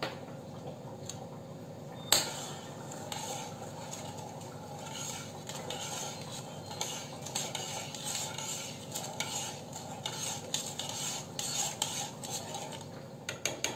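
A spoon stirring sugar syrup in a coated wok-style pan, scraping and clinking against the pan, with one sharp knock about two seconds in.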